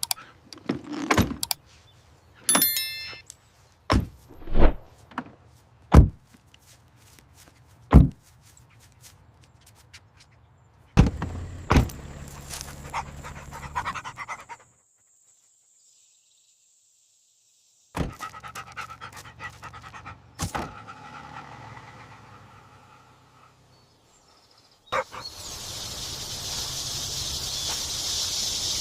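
A dog panting, with scattered sharp clicks and knocks. Near the end a steady high hiss sets in.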